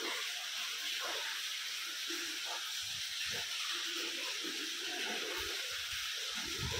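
Steady hiss, with a few faint low knocks here and there.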